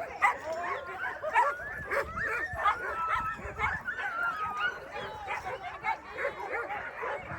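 A pack of sled dogs barking, yipping and whining together, many short overlapping calls at once.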